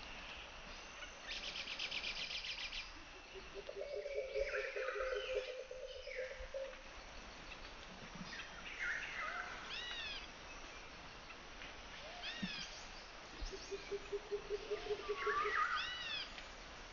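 Wild birds calling: repeated short high arching chirps and a quick high trill about a second in. Twice a lower, rapid pulsed call series runs for a few seconds.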